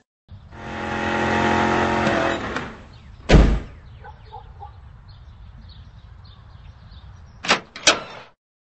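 A car engine runs as the car pulls up, then fades out. About a second later a car door slams shut. Near the end there are two sharp clicks of a doorknob and latch as a door is opened.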